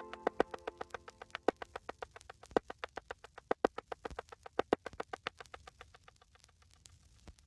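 Background music thinning to a fast, even pulse of short plucked synth notes, about eight to ten a second, that swells in the middle and fades away near the end.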